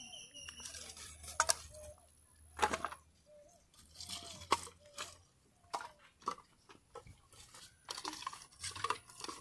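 Split firewood sticks knocking and clattering against each other as they are gathered and piled by hand, in a string of separate dry clacks.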